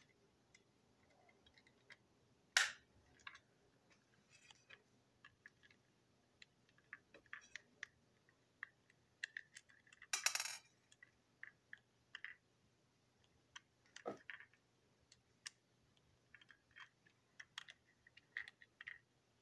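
Small plastic clicks and taps of a TrackMaster toy train coach being handled and pried apart, with a sharp click about two and a half seconds in and a brief rattling clatter about ten seconds in.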